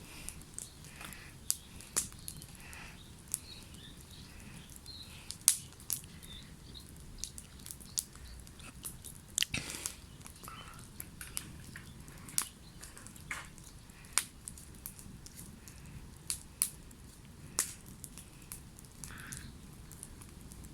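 Wood campfire burning, crackling with sharp, irregular pops over a low hiss.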